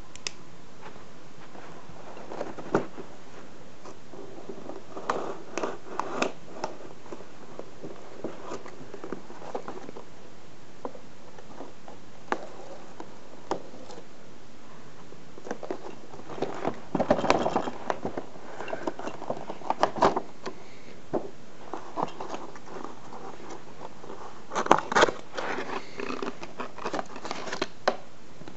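A toy's clear plastic and cardboard window box being handled and opened: plastic crackling and rustling, cardboard scraping and scattered clicks, coming in short bursts that get busier in the second half.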